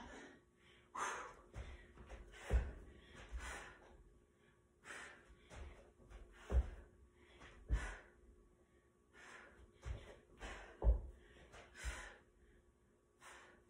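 A woman breathing hard and gasping during burpees, with several dull thuds as her bare feet and hands land on a rug-covered floor.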